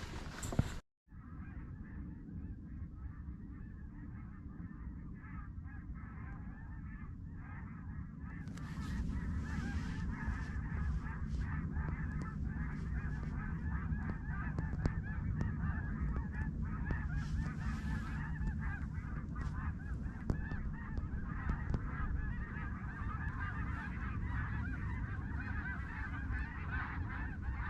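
A large flock of snow geese flying over, many birds honking and yelping at once in a continuous chatter that grows louder about eight seconds in. A steady low rumble runs underneath.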